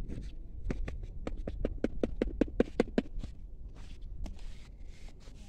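A quick, even run of light taps, about six a second for about two seconds, over a steady low rumble.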